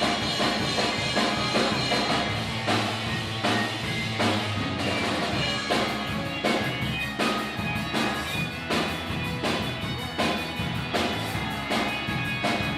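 Band music with a steady drum-kit beat and sustained instrumental notes.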